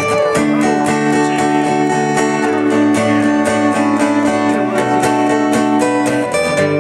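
Acoustic guitar strumming chords in a song's instrumental intro, with chord changes about half a second in and again near the end.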